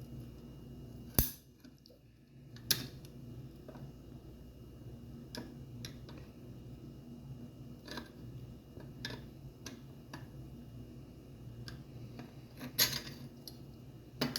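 Clicks and metallic clinks of Edwards 270 SPO fire alarm pull stations being opened and handled: a sharp snap about a second in, another a second and a half later, scattered lighter clicks, and a rattling cluster near the end.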